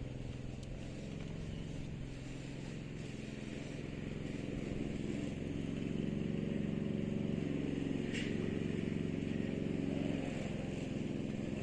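An engine running steadily, getting somewhat louder about five seconds in and easing back near the end, with a brief high squeak about eight seconds in.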